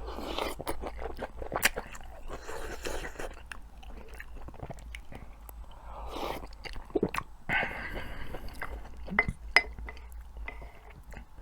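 A person chewing food close to the microphone, with wet mouth sounds, a few crunches and scattered sharp clicks.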